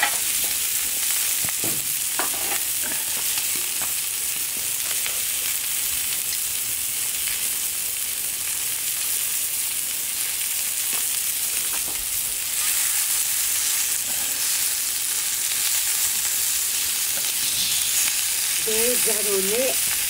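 Beef steak sizzling steadily in a small pan over a wood fire, with occasional crackles; the sizzle grows a little louder about twelve seconds in.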